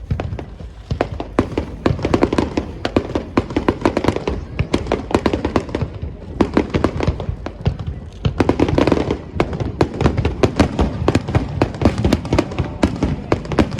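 Starmine fireworks barrage: a rapid, continuous string of sharp cracks and bangs from shells bursting, several per second, thickening into dense clusters about two seconds in and again past the middle.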